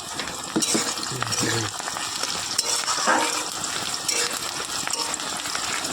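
Sliced onions frying in hot oil in a pan, a steady sizzle with fine crackling throughout.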